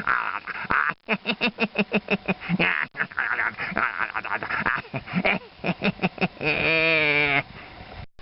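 A rapid run of short, repeated animal calls, then one longer wavering call lasting about a second near the end.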